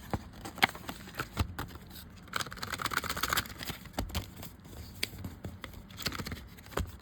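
Packaging being opened by hand: scattered clicks and light knocks of cardboard and plastic, with a short rustle of paper or plastic about two and a half seconds in.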